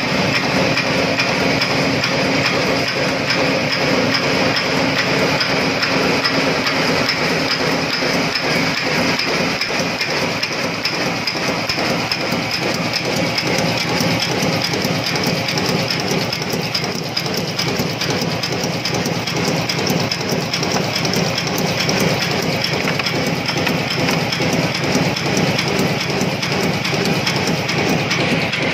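An 11B6S multi-station cold-heading nut former running and forming wire into bicycle spoke nipples: a fast, steady mechanical clatter over a constant hum.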